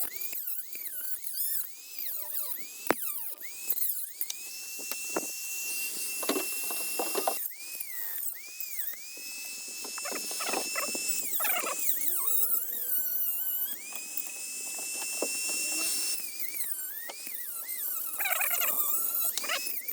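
Dremel rotary tool with a cutoff wheel cutting into the macerator's plastic connection. Its high whine sags in pitch each time the wheel bites and climbs back as it frees, with stretches of steady whine and scraping in between.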